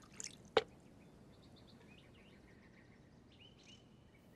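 A cup or dish clinks once, sharply, about half a second in, during the tasting of freshly made plum wine. Then birds chirp faintly in the background.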